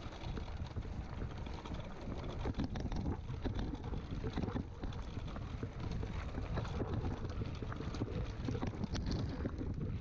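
Mountain bike riding downhill over a rough, rocky dirt trail: wind buffeting the camera microphone over a dense, continuous rattle of the bike and its tyres knocking over loose stones and rock.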